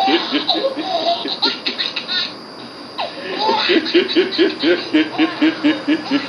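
Hearty laughter from a laugh video being played, in rapid repeated ha-ha pulses. A short lull comes about two and a half seconds in, followed by a long, fast run of ha-ha-ha.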